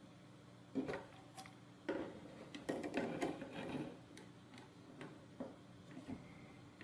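Small irregular clicks and taps of a screwdriver and pliers on a bolt and nut as a plastic gear motor's mount is tightened to a robot car chassis plate, coming thickest about two to three seconds in.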